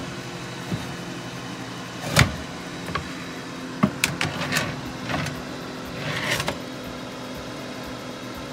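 A steady appliance hum, with several knocks and clatters and a few brief swishing handling noises over it; the loudest knock comes about two seconds in.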